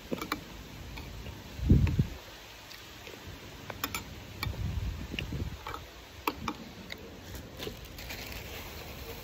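A metal spoon clinks and taps against a glass bowl while stirring thick açaí, in scattered single clicks. Two low rumbles on the microphone about two seconds in and around five seconds, and a plastic bag rustling near the end.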